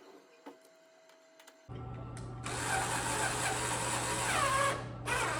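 A small motor runs steadily for about two and a half seconds with slight rises and falls in pitch, then stops, followed by a run of clicks and rattles.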